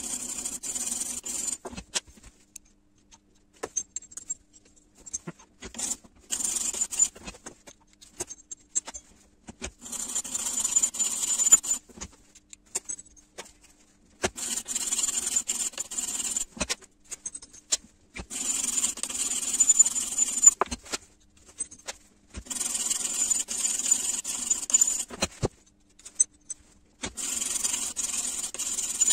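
Flat hand file rasping across a steel ISO30 collet held in a vise, filing a small flat spot on it. The filing comes in about seven runs of strokes, each one to three seconds long, with short pauses and small clicks of handling between them.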